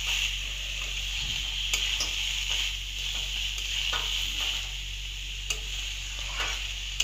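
Soaked rice frying in oil in a metal pan: a steady sizzle, with a metal spatula scraping and clicking against the pan now and then as the rice is stirred with the spice paste.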